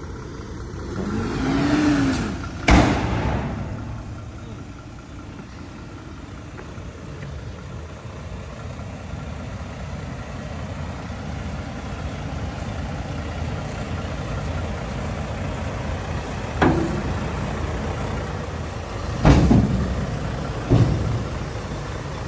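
Volvo dump truck's diesel engine running steadily with its bed raised, growing louder over the second half. There is a loud bang about three seconds in and a few sharp bangs near the end.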